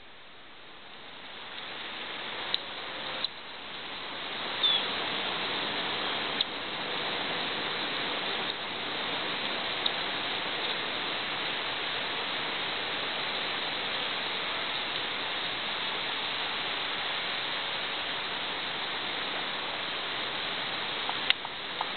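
Steady rushing noise that swells over the first few seconds and then holds, with a few faint clicks through it.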